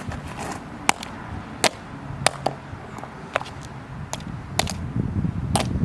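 Sharp knocks, about eight, irregularly spaced, as a hard-cased 2-cell LiPo battery is struck to puncture and short it out. A low rough rumble builds near the end.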